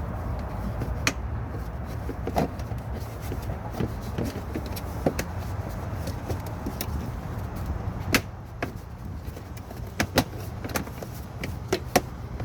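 Scattered clicks and knocks of a stiff plastic wheel-well liner being pushed and worked back into place by hand, over a steady low rumble.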